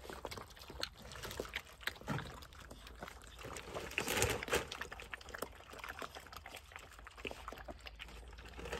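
Several puppies eating dry kibble from a shared plate: wet chewing, lip smacking and crunching, heard as many small irregular clicks, with a slightly louder burst about four seconds in.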